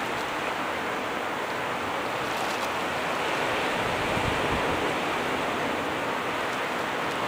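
Steady rushing noise of sea surf and wind, rising a little about halfway through.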